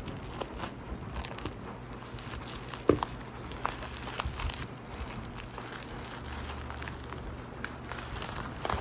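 Packaging being handled during an unboxing: scattered crinkling and light clicks and taps, with one louder knock about three seconds in.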